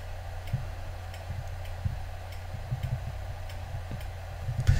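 Faint light clicks, roughly two a second, over a low steady hum.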